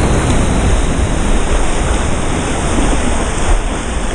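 Whitewater of a broken wave rushing and splashing around a foam surfboard as it rides the wave, a steady loud rush of water with heavy wind noise on the microphone.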